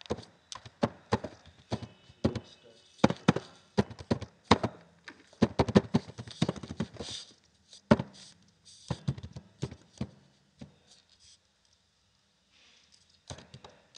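Computer keyboard typing: irregular runs of sharp key clicks, with a short pause near the end.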